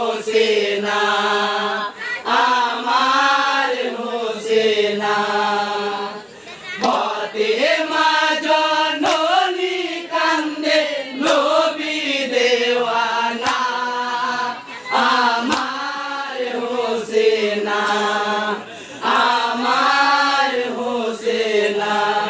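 A male singer chanting a Bengali jari gaan marsiya, a Muharram lament for Hassan and Hussain, into a microphone, in long repeated sung phrases. A sharp knock comes every couple of seconds.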